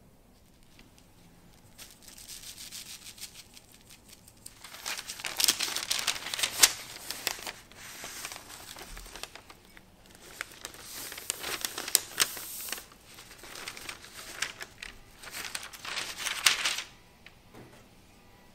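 Sheet of parchment baking paper being lifted, folded and laid down, crinkling and rustling in irregular bursts. The crinkling stops about a second and a half before the end.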